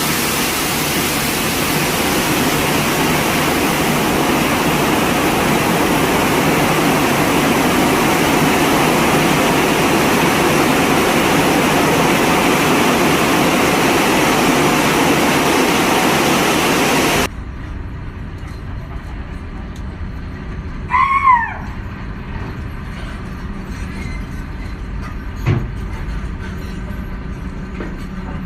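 Railway wagons rolling: a loud, steady rushing noise that cuts off suddenly about 17 seconds in. After that comes a quieter low background, a short squeal that falls in pitch about 21 seconds in, and a single click a few seconds later.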